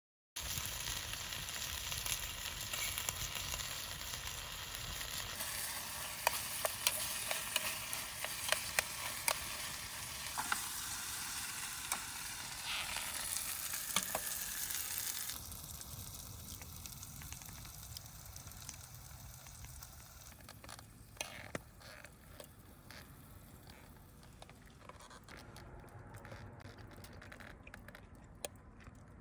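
Yangnyeom chicken sizzling in a pan over the fire stand, with scattered sharp clicks of utensils against the pan. The sizzle drops noticeably about halfway through and carries on more quietly.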